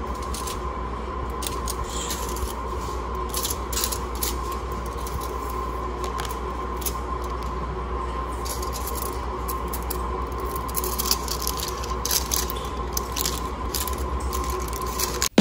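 Hand-handling sounds of fingers pressing and rubbing a coin on a glossy plastic cover: scattered light scrapes and clicks over a steady background hum.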